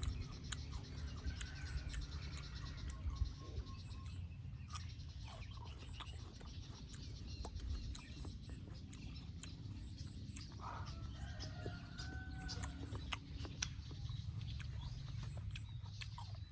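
A rooster crowing once, one long call about ten seconds in. A steady high-pitched buzz runs underneath and drops out around the middle, with scattered sharp clicks.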